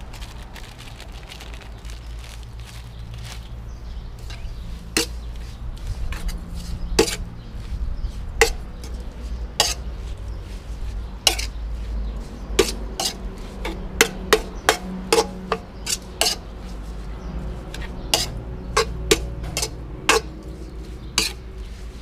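Cutlery and dishes clinking in sharp, irregular clicks that come more often in the second half, over a low steady hum.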